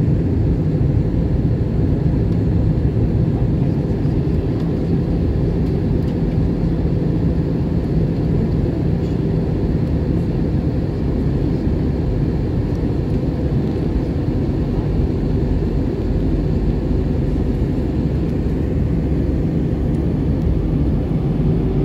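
Steady cabin noise of an Airbus A320 in flight on approach: a constant low drone of engines and airflow, heard from inside the passenger cabin.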